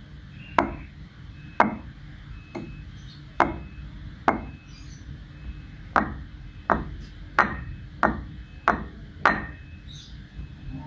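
Stone mortars (cobek) lifted by the rim and knocked back down onto a tile floor, giving a series of sharp stony clacks, about one a second at first and quicker in the second half. It is a sound test to tell a real stone cobek from a cement one.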